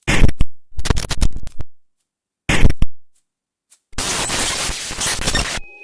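Bursts of electronic static that start and cut off abruptly, with dead silences between them, then a steadier run of static for about a second and a half that stops suddenly near the end. This is a glitch-style static sound effect.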